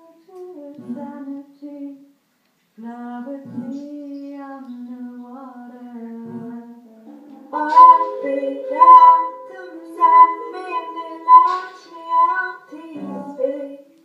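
Electronic soundscape of an Arduino MP3-shield installation played through a small amplifier: sustained, voice-like pitched tones that bend slightly and stop briefly about two seconds in. From about halfway several layered notes join and grow louder, with a few sharp accents.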